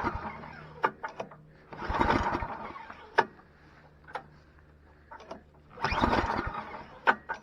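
Toro 824 XL snowblower's recoil starter being pulled three times, cranking the engine with a rough whirring burst on each pull, with clicks in between. The engine does not catch: it is getting no fuel, even with starter fluid sprayed in.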